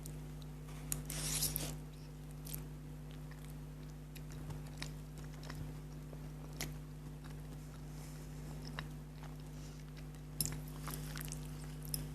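Close-miked mouth sounds of eating spicy sour noodles: wet chewing with scattered sharp clicks and smacks. A longer noisy burst comes about a second in and another near the end, over a steady low hum.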